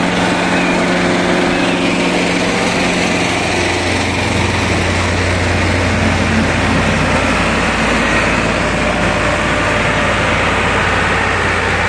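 Diesel engines of a Mahindra 585 DI and a Farmtrac 45 tractor running hard under load as the two pull against each other in a tractor tug-of-war. The engine note changes and deepens about three and a half seconds in.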